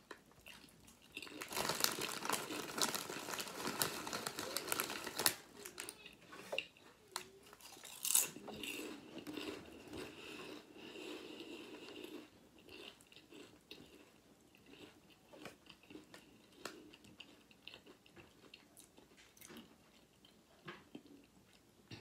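A person eating: crunching and chewing, densest for the first few seconds, a sharp click about eight seconds in, then softer intermittent chewing that thins out toward the end.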